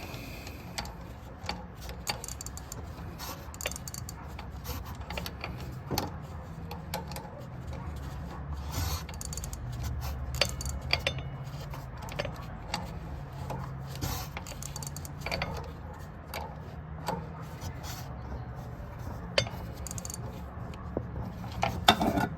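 Irregular metal clinks and taps from hand tools and shifter hardware being worked under a car, over a low steady hum.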